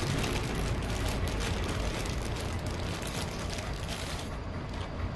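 Clear plastic bag crinkling and rustling as the test lead wires inside it are handled, over a steady low hum. The crinkling thins out about four seconds in.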